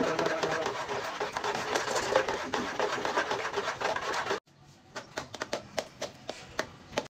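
A spoon stirring a thick cornmeal batter in a metal pot: a dense run of scraping strokes that cuts off abruptly after about four and a half seconds, followed by scattered lighter scrapes and taps.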